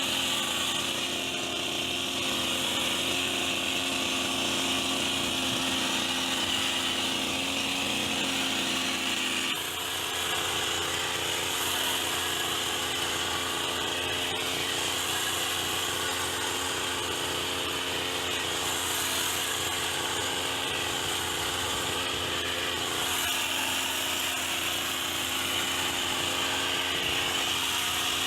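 Petrol hedge trimmer engine running steadily with its blades going. Its tone shifts abruptly about ten seconds in.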